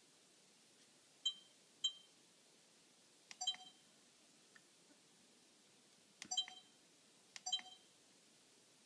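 Sony HDR-CX220 Handycam camcorder giving short electronic beeps as its touchscreen menu buttons are pressed during the first-start setup of clock and date, five beeps at irregular intervals.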